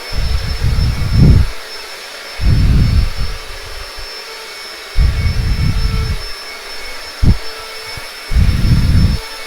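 Vacuum cleaner running with a steady rushing noise and a thin high whine. Several loud low rumbles, each about a second long, come and go irregularly over it.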